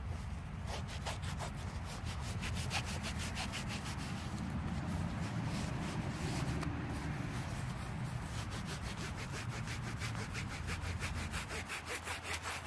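A freshly dug coin, an Indian head cent, rubbed hard back and forth on trouser fabric to scrub the soil off so it can be read: quick scratchy strokes, about five a second, with a few short breaks.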